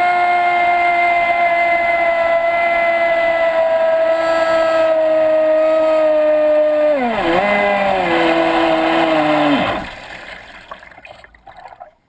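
Traxxas Spartan RC speedboat's brushless electric motor running at high speed with a loud whine that sinks slowly in pitch, heard from a camera on board. About seven seconds in the pitch drops sharply as the throttle comes off. The motor runs on lower for a couple of seconds and stops, leaving faint water sloshing.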